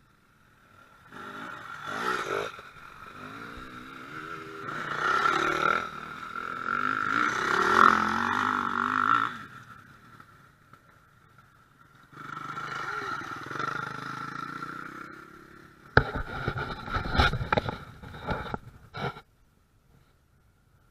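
Enduro dirt-bike engines passing on a dirt trail, the engine note rising and falling as the riders ride by; a second pass follows a few seconds later. Near the end comes a short run of sharp knocks and clatter.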